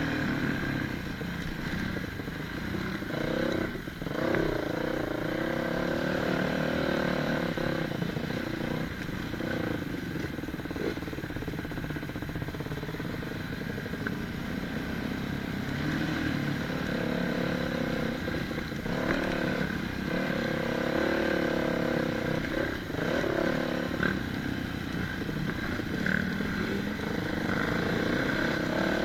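Dirt bike engine running under load along a rough trail, its pitch rising and falling repeatedly as the throttle is opened and closed.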